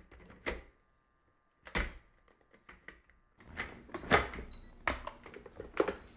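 A Cuckoo rice cooker being loaded and shut: hard plastic-and-metal knocks as the inner pot goes in and the lid comes down, then a quick run of clicks and thunks as the lid's top handle is worked. There are two single knocks in the first two seconds and a busier cluster in the second half.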